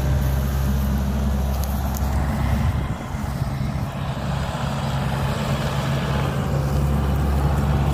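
Yanmar AW70V crawler combine harvester's diesel engine running steadily as the machine drives along carrying a wooden pole. Its low, steady hum dips and wavers briefly about three seconds in, then settles back.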